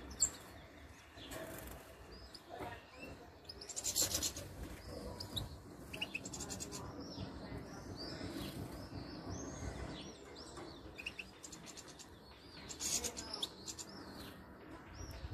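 European goldfinches chirping and twittering in short, high calls, with a louder rapid burst about four seconds in and again near the end.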